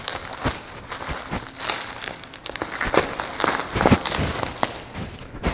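Packing paper and wrapping being handled and pulled open: an irregular run of rustles, crinkles and small knocks.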